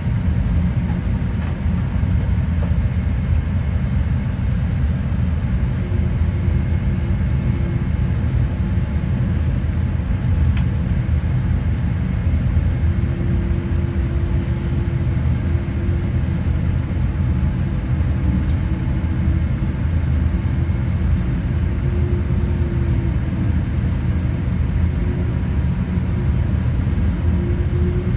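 Boeing 787-8 cabin noise while taxiing after landing: a steady low rumble from the idling engines and rolling wheels. A faint steady hum joins it about six seconds in.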